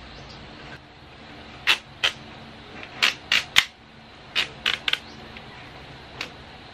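Sharp plastic clicks and taps from a white folding plastic CD player stand being handled and unfolded, about nine in all, some in quick pairs and triples.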